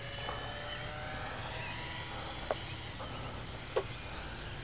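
Distant Nitroplanes 800mm Corsair RC plane's electric motor and propeller whining faintly, its pitch drifting slightly, over a low steady hum. Two short clicks come about two and a half and nearly four seconds in.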